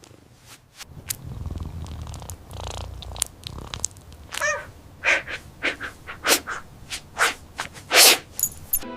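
A cartoon cat holding in a sneeze: a low purr-like rumble, then a string of short, sharp sniffs and snorts. The loudest comes about eight seconds in, and the sneeze itself never comes out.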